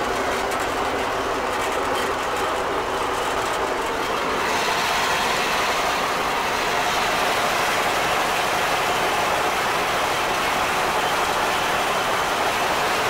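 Fortschritt E303 self-propelled mower running in the field, its engine and reciprocating cutter bar making a steady mechanical clatter inside the cab. About four and a half seconds in, the noise gets slightly louder and brighter.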